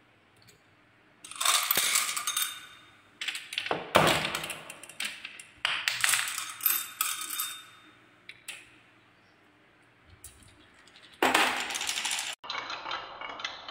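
Glass marbles clattering down a wooden marble-run slope over its raised bumps, in several bursts of rapid clicking, the loudest about four seconds in. Near the end they roll on into a wooden spiral track with a softer, steady rattle.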